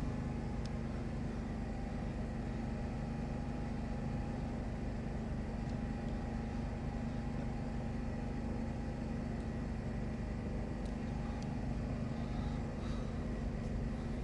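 Steady low mechanical hum of a running motor, holding one even pitch with a few fainter higher tones, and a few faint ticks near the end.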